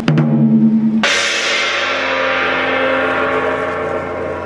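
A large metal percussion instrument like a gong is struck once about a second in and rings with many overtones, fading slowly. Before the strike a loud, low, sustained pitched sound plays, and it cuts off at the strike.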